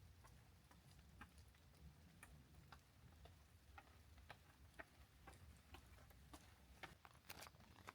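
Near silence with faint footsteps on the trail: light clicks, about two a second.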